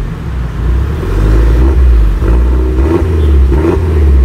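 Peugeot 3008's aftermarket exhaust, fitted with remote-controlled on/off valves, giving a loud, deep rumble as the engine is revved up and down again and again.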